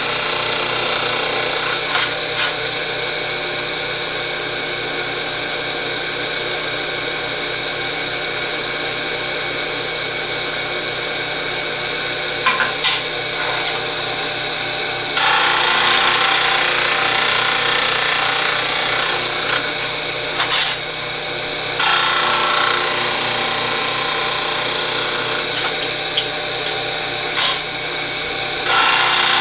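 12-inch disc sander running steadily, with two stretches of louder grinding about halfway through as a metal part in a chamfer jig is pressed against the abrasive disc, and a few sharp knocks as parts are handled in the jig.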